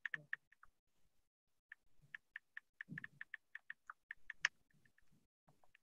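Computer keyboard being typed on: faint, irregular light key clicks, several a second in runs with short pauses.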